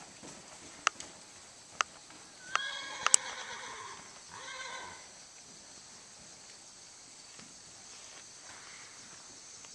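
A horse whinnies, a pitched call of about a second and a half followed by a shorter second call. Before it come three sharp clicks about a second apart.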